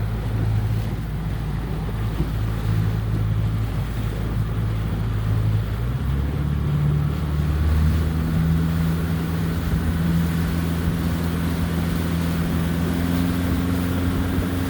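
Motorboat engine running steadily over water and wind noise; about six seconds in its note changes, then climbs slowly higher toward the end.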